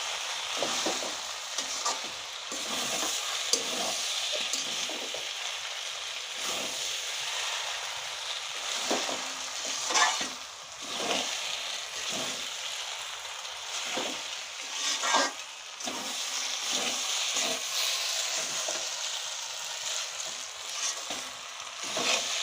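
Chicken chow mein noodles sizzling on high heat while being stirred and tossed in the pan, a steady frying hiss with a few sharp utensil strokes against the pan.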